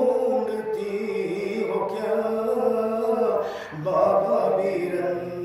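A man sings a noha, an Urdu lament, into a microphone, drawing out long held notes without words. He breaks off briefly about two thirds of the way through, then carries on.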